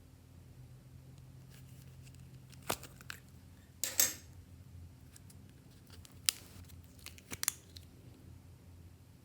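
Clear slime being worked by hand: a handful of sharp sticky pops and crackles, the loudest a short crackling burst about four seconds in.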